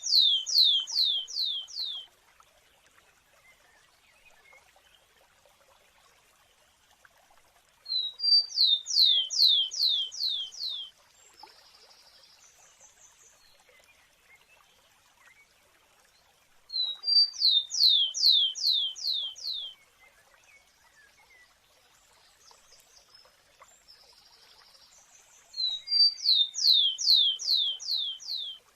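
A rufous-collared sparrow singing its song four times, about every nine seconds: one or two short high notes, then a quick run of five or six falling slurred whistles.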